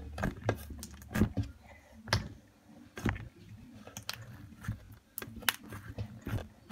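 Sticky green slime with Play-Doh mixed in, kneaded and pulled between the fingers and off the tabletop, making irregular sharp clicks and small wet pops.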